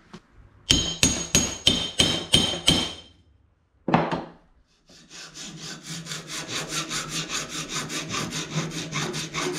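Hammer striking an aluminium skin stiffener held in a bench vise: about eight quick, ringing blows to flatten a misformed joggle so it closes up against the bulkhead. Then a single knock as the hammer is set down on the wooden bench. After that a hand file works the aluminium part in steady, quick rasping strokes.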